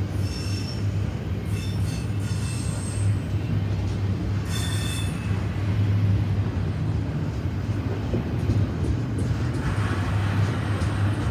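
Double-stack container train of well cars rolling past close by: a steady low rumble of wheels on rail. Brief high-pitched wheel squeals come and go in the first five seconds or so.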